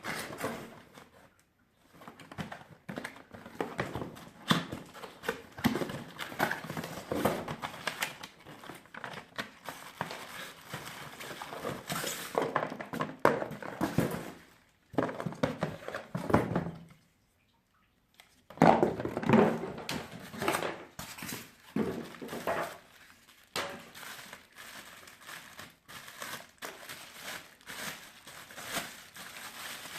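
Packaging being handled during unpacking: plastic and packing material crinkling and rustling, with scattered knocks and thuds. A short silent gap falls just past halfway.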